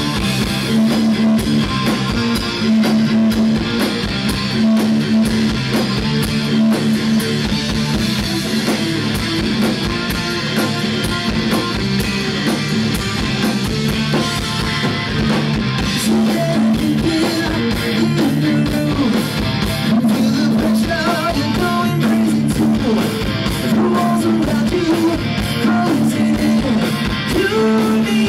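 Hard rock band playing: distorted electric guitar, bass and drum kit on a driving, steady beat.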